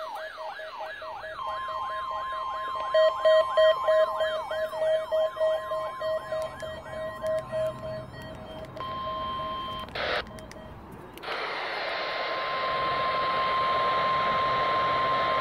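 Electronic alert tones over a radio feed: a rising siren-like sweep repeating about two and a half times a second, with a steady high tone and a pulsing lower tone under it. After a brief burst about ten seconds in, it gives way to static hiss carrying a steady high tone.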